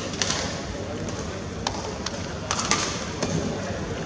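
Badminton rally: a few sharp racket-on-shuttlecock hits over the steady hubbub of an arena crowd.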